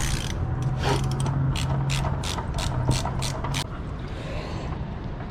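Hand ratchet wrench clicking in a quick run of strokes, about three to four a second, as a fastener is worked loose during an oil change. The clicking stops a little over halfway through.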